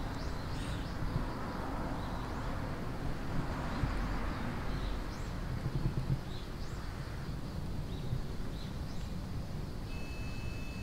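Outdoor ambience: short, faint bird chirps scattered throughout over a steady low rumble, with a wash of distant noise, like passing traffic, swelling and fading over the first several seconds.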